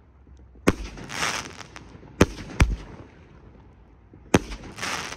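A 19-shot spider brocade firework cake firing: four sharp bangs spaced a second or two apart, two of them close together, each of two followed by a rushing hiss.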